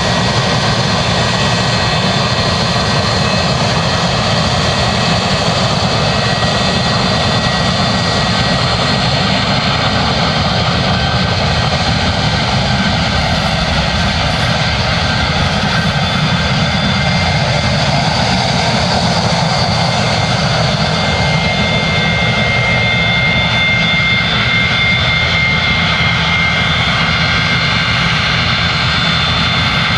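Boeing 737-200's Pratt & Whitney JT8D turbofan jet engines running steadily: a loud, even rush of noise with high, steady whining tones over it.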